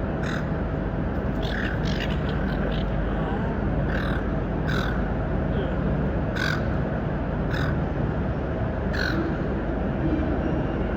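Seagulls giving short, harsh squawking calls over and over, with a quick run of several calls about two seconds in, over a steady low rumble.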